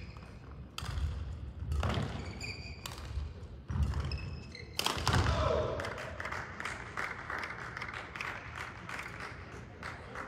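Dull thuds echoing in a large sports hall, about once a second for the first five seconds, with brief high shoe squeaks near some of them. Then comes a stretch of hiss with many small scattered clicks.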